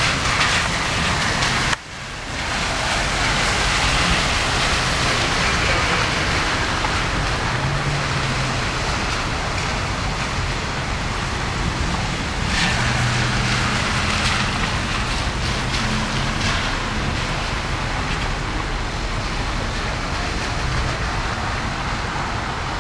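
Steady wash of rain and wet-street traffic noise, with a vehicle engine humming louder a few times. The sound cuts out for an instant about two seconds in.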